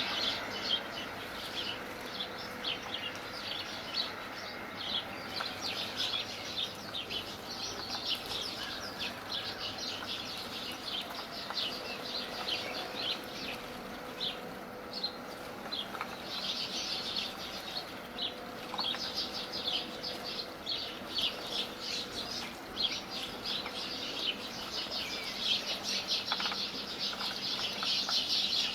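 A flock of small birds chirping busily, many short high calls overlapping without a break.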